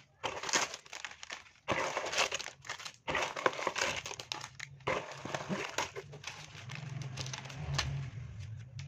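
Clear plastic bags of building bricks crinkling in irregular bursts as they are handled and spread out by hand.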